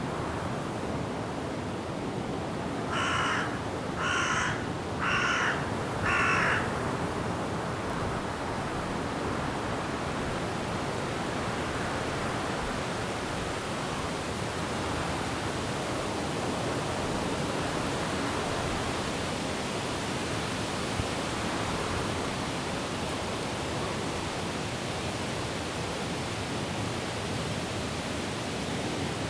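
Steady hiss of wind blowing through forest trees with falling rain. About three seconds in, a bird gives four cawing calls, about one a second.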